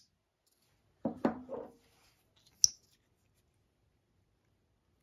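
Slipjoint pocket knife's blade snapping into place under its backspring with one sharp click about two and a half seconds in, after a brief, softer clatter of the knife being handled about a second in.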